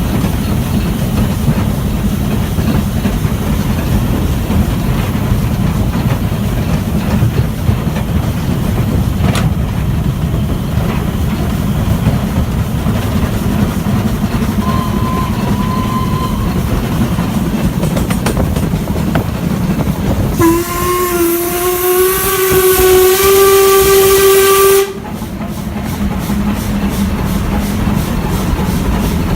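Stanier 8F steam locomotive sounding its whistle once for about four seconds, the pitch rising slightly with a rush of steam, then cutting off sharply. Beneath it and before it is a steady low rumble of the train running.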